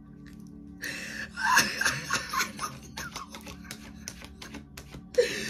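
A woman laughing in a run of bursts starting about a second in, over soft steady background music.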